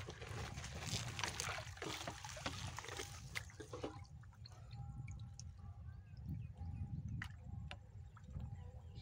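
Pond water sloshing and dripping around a person wading with a hand-held push net, water trickling off the lifted mesh; it settles to quieter splashes and drips after about four seconds.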